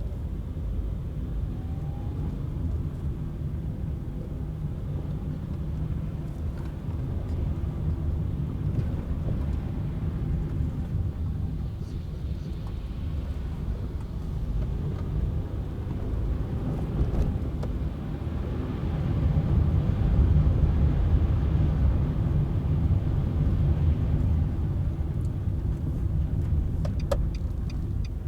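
A car driving, with a steady low rumble of engine and road noise that grows louder about two-thirds of the way through. Near the end, regular clicking of the turn signal starts.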